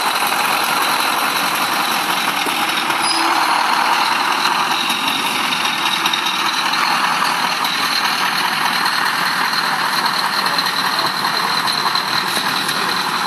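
Heavy truck engine running steadily, with a faint high whine held throughout.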